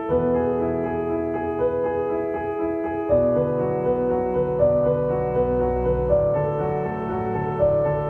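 Background music led by piano, playing slow sustained notes; a deeper, fuller chord comes in about three seconds in.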